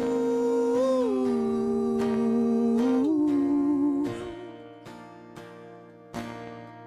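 Rock band playing live: acoustic guitar strumming under a held wordless vocal note that bends slightly in pitch and drops away about four seconds in, leaving the guitar alone.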